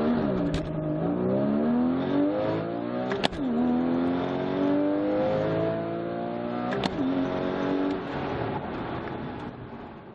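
2015 Porsche Boxster GTS's 3.4-litre flat-six accelerating flat out from a standing launch through its six-speed manual, heard from inside the cabin. The engine note climbs in pitch, drops with a click at the shift into second about three seconds in, climbs again, and drops at the shift into third nearly seven seconds in. It then holds and fades out near the end.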